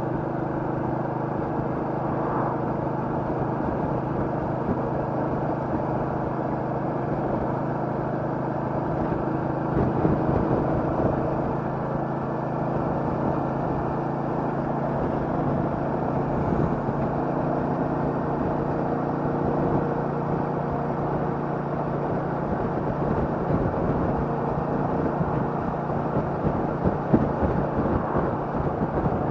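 Royal Enfield Meteor 350's 349 cc single-cylinder engine running at a steady pitch, a little louder about ten seconds in.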